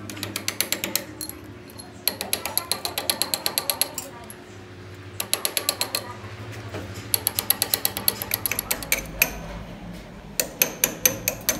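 Rapid metallic clicking, about eight clicks a second in runs of one to two seconds with short pauses between, over a steady low machine hum. This is a machine tool's cutter stroking across the weld-built spline teeth of a broken drive pinion shaft, re-cutting them.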